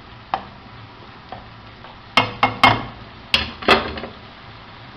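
A cooking utensil knocking against a pan while stirring frying onion: a light tap early, then about five sharp knocks with a brief ring in the middle.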